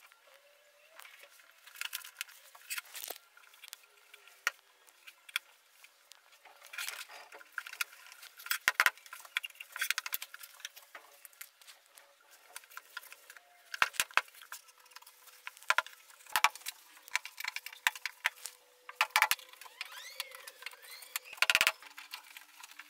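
Wooden frame pieces, metal pins and steel rods handled on a workbench: scattered wooden knocks and light metallic clinks, a few of them sharp, louder taps, over a faint steady hum.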